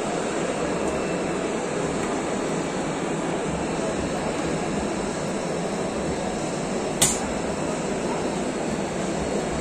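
Steady din of a busy machine-tool exhibition hall: running machinery and a distant crowd. A single sharp click sounds about seven seconds in.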